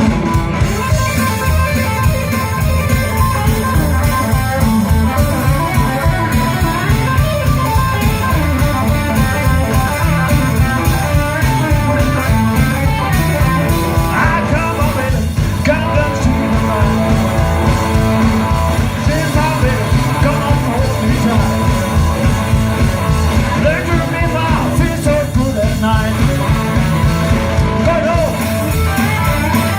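Live band playing an instrumental blues-rock passage: guitars over a steady, fast-driving beat.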